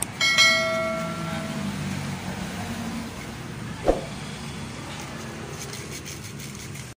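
A bell-like chime rings out and fades over about a second and a half, over a steady low rumble. A single sharp knock comes about four seconds in.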